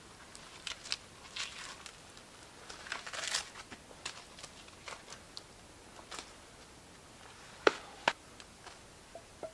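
Scattered crackles and rustles of wood being handled on a chopping stump and of feet shifting on dry forest-floor litter, with two sharp knocks about half a second apart near the end.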